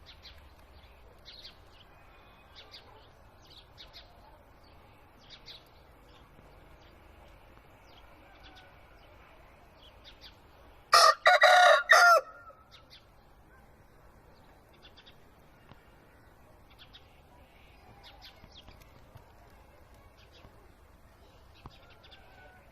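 A rooster crows once, a single loud call of about a second and a half halfway through. Faint short bird chirps come and go around it.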